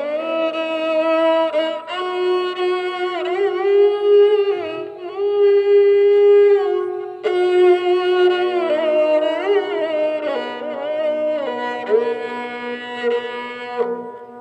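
Bowed string instrument with many sympathetic strings playing a slow traditional Rajasthani maand melody, with sliding notes and vibrato over a steady drone. The bowing stops for a moment near the end.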